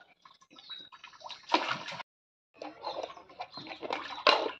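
Water splashing and sloshing in a plastic bath tub around a small child, in irregular bursts, the strongest about one and a half seconds in and near the end, with a short break a little after two seconds.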